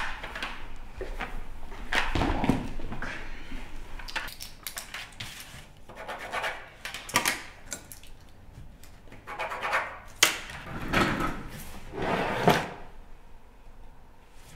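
Irregular handling noises: a scattered series of knocks, clicks and rustles, louder in a few places.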